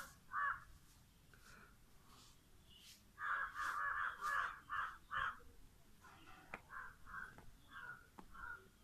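Crows cawing: one call near the start, a quick run of loud caws about three seconds in, then softer caws toward the end.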